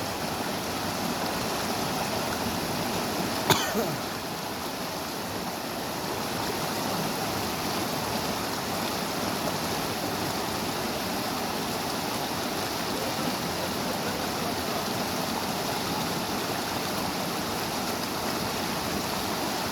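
Small river running steadily over rocks, an even rush of water. About three and a half seconds in there is one brief sharp knock.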